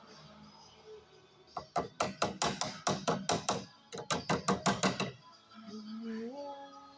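Rapid series of sharp hammer taps on metal gearbox parts, about five a second for some three seconds, with a brief pause midway. Near the end a held musical tone steps up in pitch.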